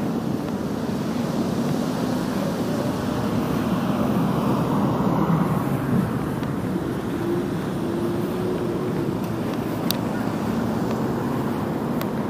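Steady road and wind noise from a moving vehicle travelling through town streets, with a faint engine hum of nearby traffic about halfway through.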